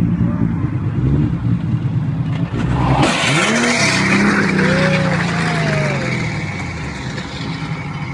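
Car engine running, then about three seconds in a sudden loud rushing noise with short rising and falling squeal-like tones that fade away.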